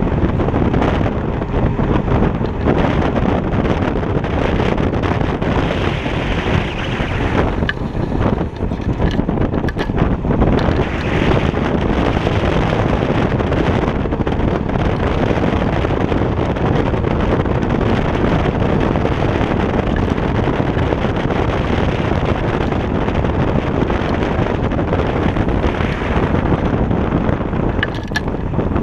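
Wind buffeting a GoPro microphone side-mounted on a Kaabo Wolf King GT electric scooter riding at speed: a steady, loud low rush that dips briefly a couple of times.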